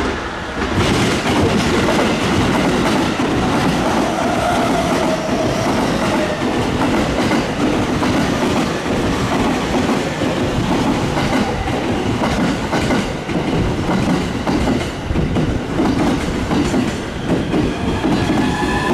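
A JR Tokaido Line train running past the platform: a loud, steady rumble with the quick clack of wheels over rail joints. It starts abruptly about half a second in, and a thin whine comes in near the end.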